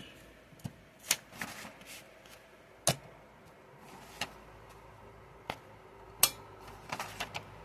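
Manual typewriter's levers and mechanism being worked by hand: scattered sharp clicks and clacks at an irregular pace, two of them louder, with a quick cluster near the end.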